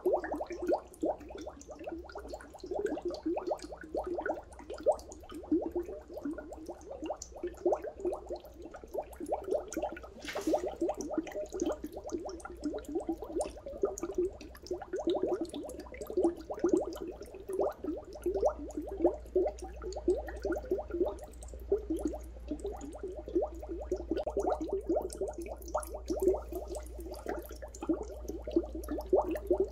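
Dry ice bubbling in the water of a toilet bowl as it turns to gas: a steady, fast, irregular stream of small popping bubbles.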